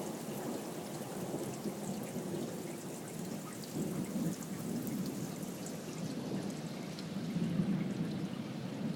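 Thunder rumbling during steady rain, the rumble swelling about four seconds in and again near the end, with scattered raindrop ticks.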